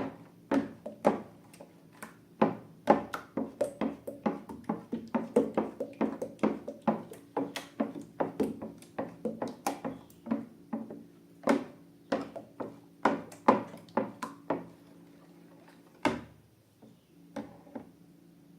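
Slime being squeezed and kneaded by hand, giving a dense run of irregular sharp clicks and pops that thins out after about sixteen seconds, over a faint steady hum.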